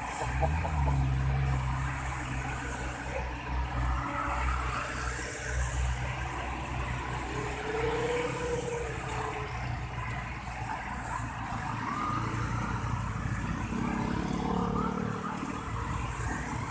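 Road traffic with buses going past: a steady, low engine rumble and tyre noise.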